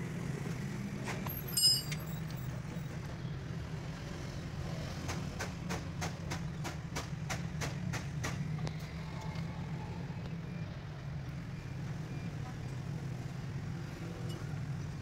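An engine running steadily at low revs. A single sharp metallic clink rings out nearly two seconds in, and about a dozen evenly spaced sharp clicks follow in the middle, roughly three a second.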